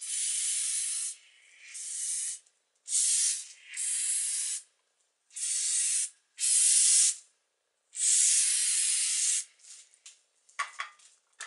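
Aerosol can of spray lubricant hissing in seven short bursts of about a second each. It is soaking down the cylinder walls of a freshly honed and washed small-block Chevy 400 block to keep rust off.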